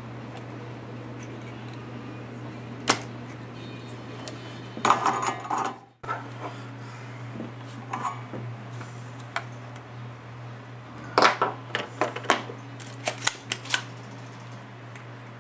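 Scattered sharp clicks and light metallic clatter of small hand tools, a spring-loaded desoldering pump and pliers, working in an old metal electronics chassis. One click comes about three seconds in, a busier clatter follows around five seconds, and a run of clicks comes near the end, all over a steady low hum.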